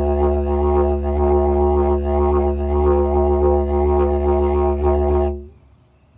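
Lightweight didgeridoo playing a steady low drone with strong overtones and a rhythmic pulse about twice a second, stopping abruptly about five seconds in.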